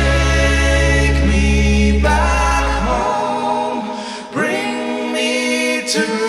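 A male voice sings a slow, sustained melodic line over a held low note. The low note stops about three seconds in, leaving the voice almost unaccompanied.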